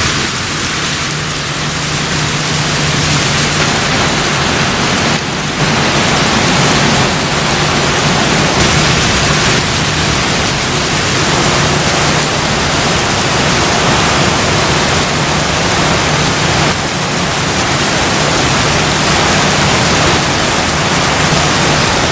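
Heavy rain pouring down steadily, a dense even hiss, with a low steady hum underneath.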